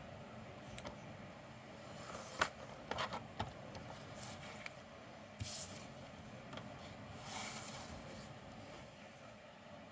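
Vinyl fork graphic sheets being cut and handled: scattered light clicks and scrapes, then two short hissing sweeps, the second a little longer.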